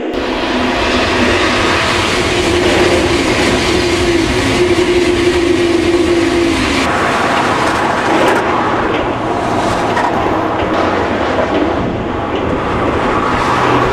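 Electric passenger train passing close by: a loud, steady rush and rumble of wheels on track, with a steady hum in the first half that gives way to a rougher noise about seven seconds in.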